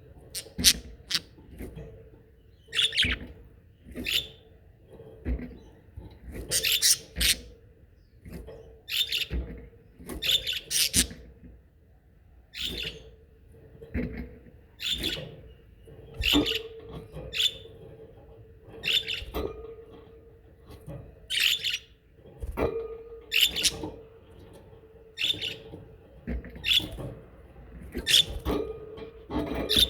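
Pet budgerigars chirping and chattering in short quick bursts, about one a second throughout. A steady low hum runs underneath.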